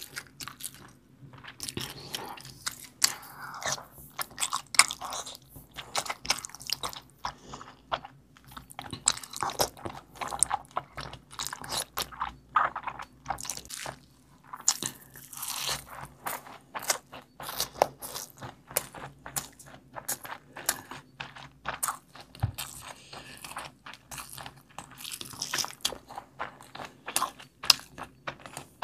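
Close-miked eating by hand: chewing with dense, irregular mouth clicks and smacks, along with fingers squishing through biryani rice and curry.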